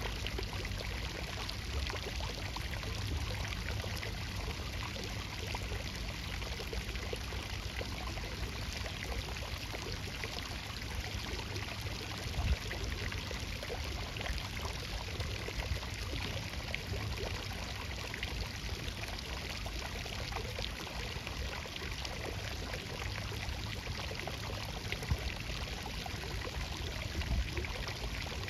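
Steady running water with a low rumble underneath, and a couple of brief knocks about 12 and 25 seconds in.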